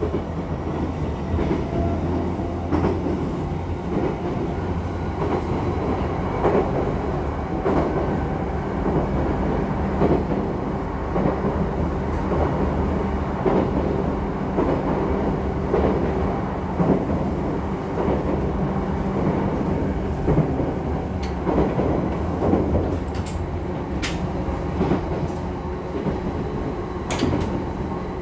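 Running sound inside a JR East E233 series 2000-subseries electric commuter train travelling between stations: a steady low rumble with the wheels clicking over rail joints, and a few sharp high clicks in the last third.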